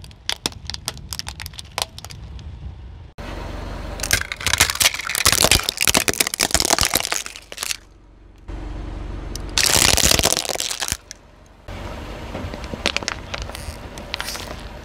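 Brittle objects cracking and crunching under a car tyre as it rolls over them, in several short clips joined by abrupt cuts. The densest crackling comes a few seconds in and again around the middle.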